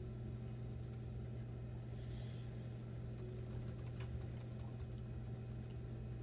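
Faint, scattered clicks of typing on a computer keyboard over a steady low hum.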